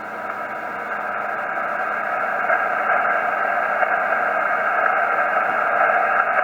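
Static hiss from a Yaesu FT-847 HF transceiver's speaker on the 40-metre band, heard between transmissions with no one talking. The hiss is steady and narrow in range, like a communications receiver, and slowly grows louder.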